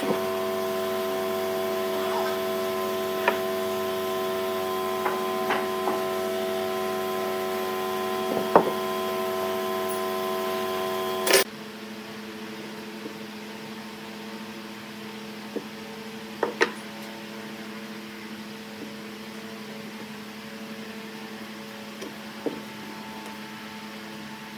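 Steady electrical hum with several constant tones, with a few light clicks and taps of a steel ruler and marker pen against a wooden block. The hum drops abruptly and becomes quieter about eleven seconds in.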